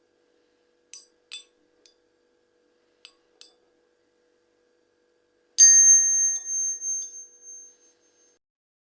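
Light metal clicks in pairs, then one sharp metallic strike a little past the middle that rings like a small bell, its clear tones fading out over about two seconds. The ring is typical of steel struck or dropped on a hard surface.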